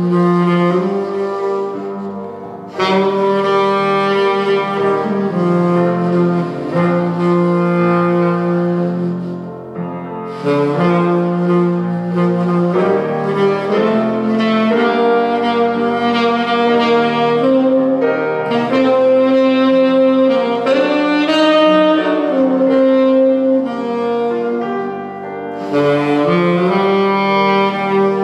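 Saxophone and grand piano playing a slow duet: the saxophone holds long melodic notes in phrases, breaking for breath about two seconds in, around ten seconds and near the end, over the piano accompaniment.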